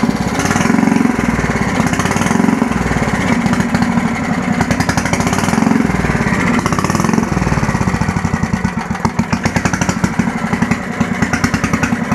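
Small single-cylinder engine of an old Bolens garden tractor running unevenly, with its air filter off. Its note surges about once a second at first, then breaks into a quicker, choppy pulsing near the end. The owner is unsure whether it is running out of fuel.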